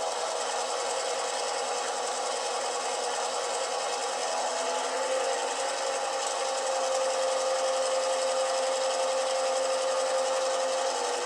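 Model-train sound decoder playing an EMD GP9 diesel engine sound through two tiny sugar-cube speakers, the engine revving in place under drive hold during a throttle run through the notches. The engine pitch steps down about five seconds in and then holds steady; the sound is thin, with almost no bass.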